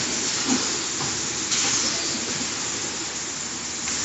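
Steady hiss of a running shrink-wrapping packaging line for bottled water (heat-tunnel blowers and conveyors), with a few brief knocks from the packs and machine parts.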